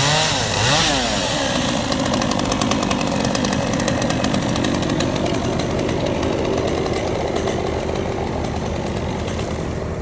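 Stihl chainsaw cutting through birch logs. Its pitch rises and falls in the first second as the throttle comes up, then it runs steadily under load through the wood.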